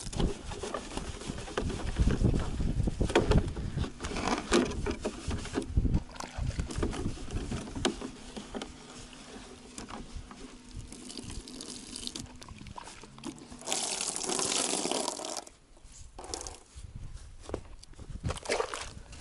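A wet foam sponge scrubs soapy car-shampoo water over a VAZ 2106's trunk-lining panels, with irregular squelching strokes and trickles of water. The strokes are busiest in the first half, and there is a louder wet rush about three-quarters of the way through.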